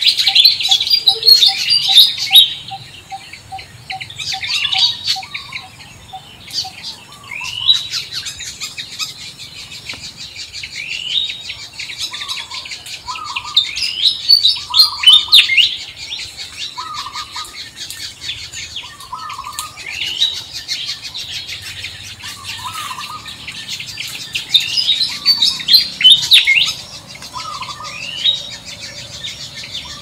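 Several birds chirping and singing together, with many quick high chirps and falling whistles. A low note repeats a little over twice a second until about seven seconds in, and a lower short call repeats every second or two.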